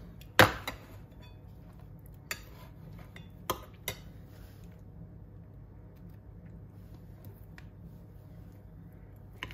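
Ceramic bowl and metal spoon clinking as they are handled and set down: one sharp knock about half a second in, then a few lighter clicks, over a low steady hum.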